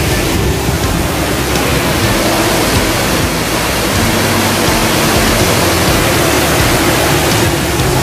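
Shifen Waterfall, a wide cascade falling into its pool: a loud, steady rush of water.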